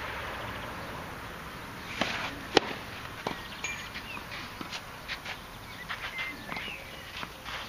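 A tennis ball struck sharply once, about two and a half seconds in, with a few fainter knocks around it on the clay court. Small bird chirps come through now and then.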